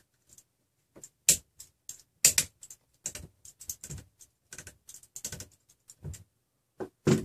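Irregular light clicks and taps of an Allen key and small screws and nuts on a stepper-motor shaft coupling as it is worked by hand, the two loudest about a second and two seconds in.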